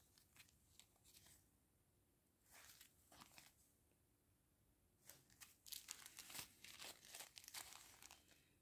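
Faint crinkling of small clear plastic bags of diamond painting drills being handled: a brief rustle a few seconds in, then a longer stretch of crinkling in the second half.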